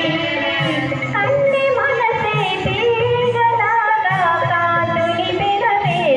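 A woman singing a Telugu film song through a microphone over amplified backing music, her melody bending and wavering between held notes.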